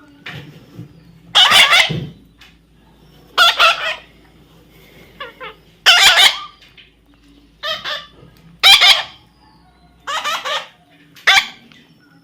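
A baby parrot squawking: about seven loud, harsh calls, each about half a second long, repeated every second or two.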